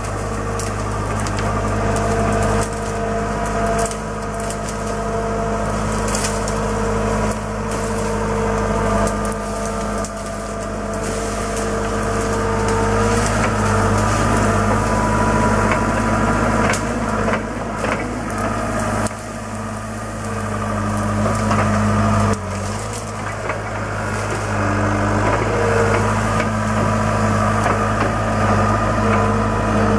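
John Deere skid steer loader's engine running under load, rising and dipping as it works. Over it come scattered sharp cracks and snaps of brush and small trees being torn out by its tree-puller grapple.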